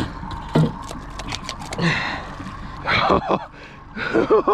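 Boat motor running at trolling speed, with scattered knocks and scuffs of a freshly landed grouper being handled on deck, and brief bits of a man's voice about three seconds in and near the end.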